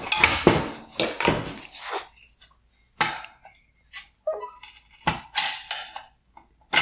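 Irregular plastic clicks, taps and rattles from hands working a headlight's Bi-Xenon connector off the projector and handling its wiring.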